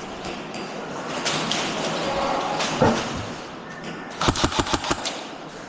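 Airsoft gun firing a rapid burst of about eight shots, about four seconds in, preceded by a single sharp knock.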